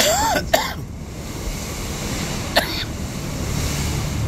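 Wind rumbling on the microphone over the steady low noise of a moving river boat and the water around it. A brief vocal sound at the start and a short sharp sound about two and a half seconds in.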